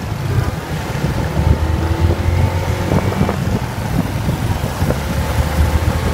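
Wind buffeting the microphone over steady vehicle engine and road noise, as heard riding on a motorbike.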